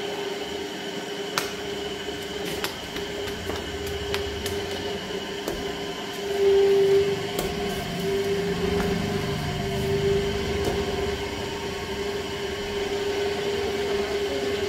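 Electric potter's wheel motor humming steadily while clay diyas are thrown, with scattered faint clicks; it grows louder for about a second around six and a half seconds in.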